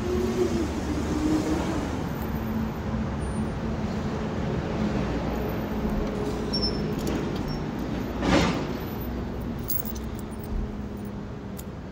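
Steady urban traffic noise with a low steady hum under it, and one brief louder rush about eight seconds in.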